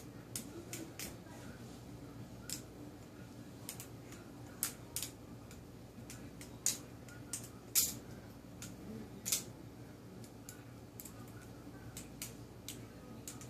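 Balisong (butterfly knife) being flipped: irregular sharp metallic clicks as the handles swing and strike, about twenty of them, over a faint steady low hum.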